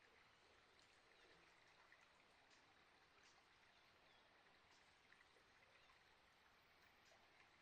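Near silence: faint running water trickling, with scattered small high ticks.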